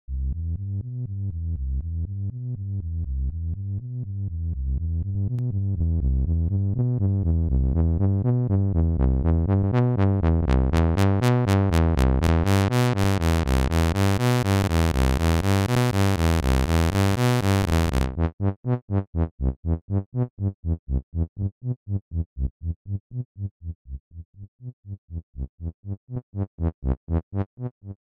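Electronic music from synthesizer and drum-machine software on a laptop, played live from a MIDI controller: a steady beat over bass that builds brighter and fuller, then about eighteen seconds in gives way abruptly to fast chopped pulses, about four or five a second, that swell again near the end.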